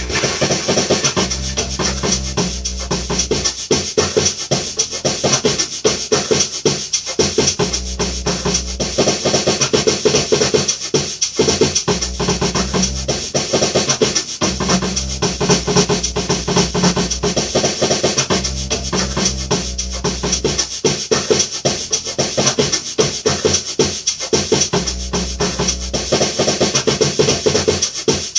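Music with a fast, dense beat over a bass line that changes note every couple of seconds.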